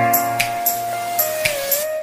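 Background music: a held melody that slides from one note to the next, over a light, regular beat.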